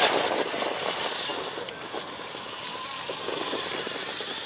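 An electric RC rock crawler's motor and gears whine faintly as it sits on and crawls over rock, under a steady outdoor hiss, with a few light clicks in the first second.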